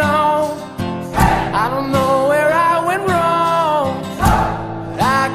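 Background song: a singer holding long notes over strummed acoustic guitar, with a few sharp beat hits.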